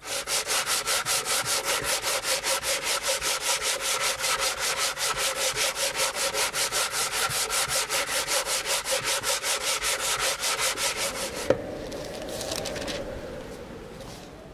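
Hand sanding a beech board with a sandpaper-wrapped wooden sanding block: rapid, even back-and-forth scratching strokes. The strokes stop about two-thirds of the way through with a short knock as the block is set down, and a fainter sound fades out after it.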